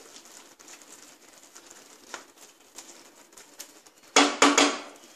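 A wooden spatula stirring thick dal in a non-stick pan with faint scraping and light clicks, then about four seconds in a quick run of sharp knocks as the spatula is tapped against the pan's rim.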